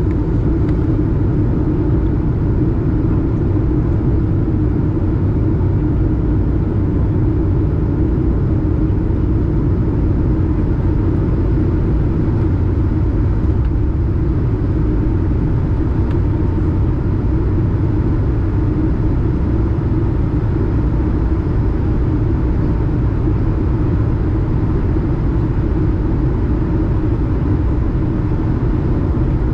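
Steady cabin noise of an Airbus A220 during its descent, heard inside the cabin beside the wing: the low, even rumble of the Pratt & Whitney PW1500G geared turbofan and the air rushing past the fuselage, with a faint steady hum above it.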